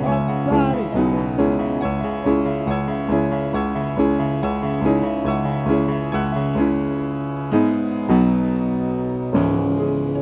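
Instrumental passage of a band recording: a keyboard with a piano sound striking repeated notes and chords, about two a second, with a short downward-sliding note about half a second in.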